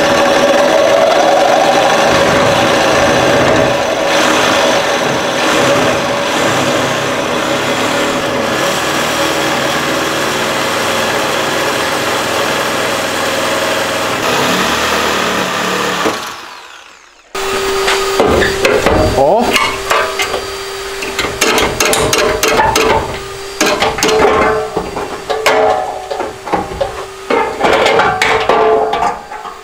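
A DeWalt reciprocating saw cutting through the steel of a car's front body, the motor running steadily under load. It stops a little over halfway through and a second cut begins, with the blade rattling and clattering against the metal.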